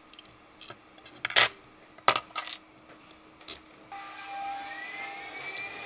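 Small metal and plastic parts being handled: a few sharp clicks and knocks as a threaded rod, washer and ball bearing are fitted against 3D-printed plastic brackets. About four seconds in, a quieter whirring tone begins and rises slightly in pitch.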